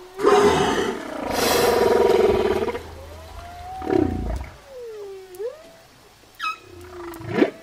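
Whale vocalizations: moans and whistles that glide up and down in pitch. Two loud buzzy, pulsed calls come in the first three seconds, and short rising calls come near the end.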